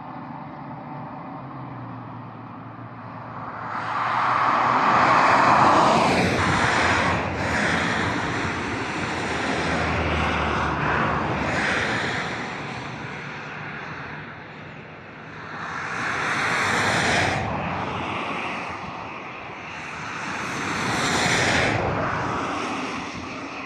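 Jet airliner flying high overhead: a broad, distant roar that swells and fades several times.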